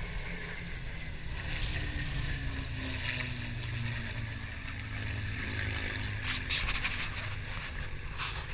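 Propeller aircraft engines droning as planes fly past, the drone dipping slightly in pitch between about one and three seconds in.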